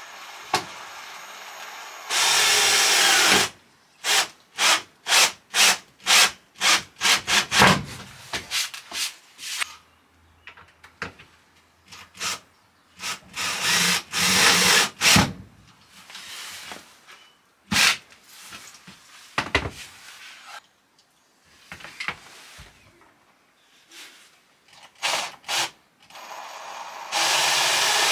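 Cordless drill/driver driving self-drilling screws through plywood flooring into a van's metal floor. It runs in short pulls of the trigger: a steady run of about a second, then a quick string of short bursts, repeated several times.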